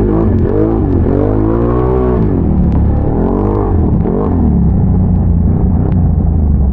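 ATV engine revving up and down in quick repeated throttle blips for about four seconds, then running at a steadier lower pitch.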